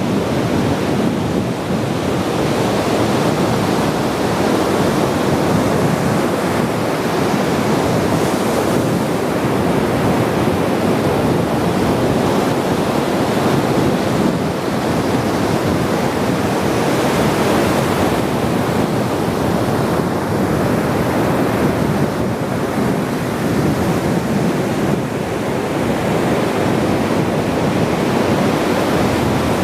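Ocean waves washing onto the shore, a steady surf rush with no distinct breaks standing out.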